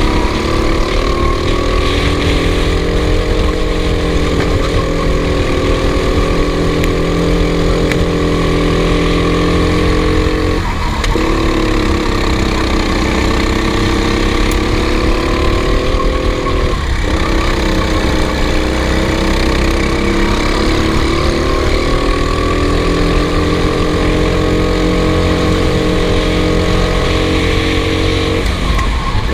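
Racing engine running at high, fairly steady revs, its note wavering slightly. It dips briefly twice, about eleven and seventeen seconds in, and again at the very end.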